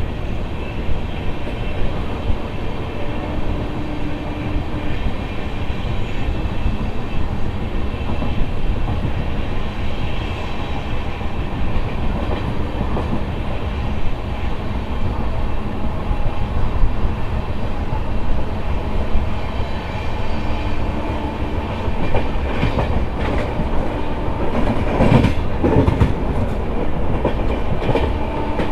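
Passenger train running along the track with a steady rumble and wheels clacking over rail joints. A run of sharper knocks comes near the end, as the wheels cross points.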